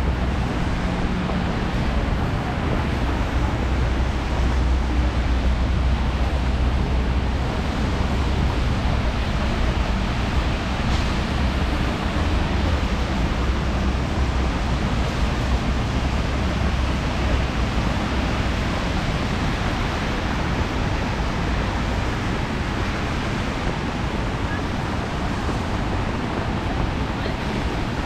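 Steady city traffic noise on a rain-wet street: tyres hissing on wet asphalt over a low engine rumble.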